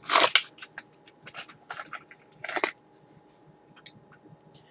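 A Hot Wheels blister pack being opened by hand: a quick run of crackling, crunching plastic and card, loudest in the first half-second. After about two and a half seconds it eases to a few light clicks.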